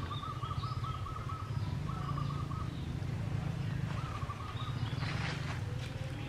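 A bird trills in three short runs of rapid repeated notes over a steady low rumble, with a couple of brief rustling rushes near the end.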